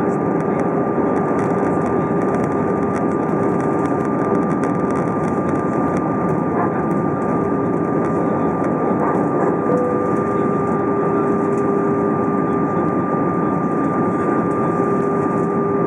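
Steady cabin noise inside an Airbus A320 descending on approach: its jet engines and the air rushing over the airframe, with a thin steady whine and a lower hum running through it.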